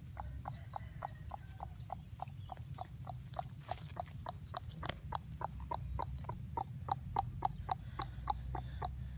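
A dog panting rapidly and evenly, about four short breaths a second.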